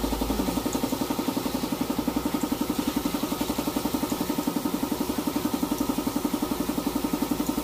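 An engine idling steadily, with a rapid, even pulse of about ten beats a second.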